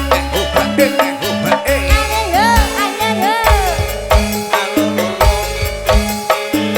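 Campursari band playing an instrumental passage: a steady, even percussion beat over a pulsing bass line, with a melody line sliding up and down in arching glides.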